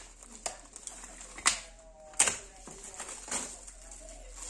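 Plastic protective film crinkling and snapping as it is cut with a utility knife and peeled off a black finned heatsink, with several sharp clicks and a brief squeak near the middle.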